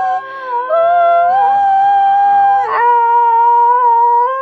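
A small dog howling along in long, held notes while a person hums with him, their pitches sounding together.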